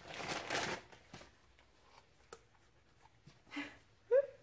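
Plastic parts bag crinkling as a new rubber steering rack boot is pulled out of it, then a few faint light knocks of the rubber boots being handled. A brief rising vocal sound comes near the end.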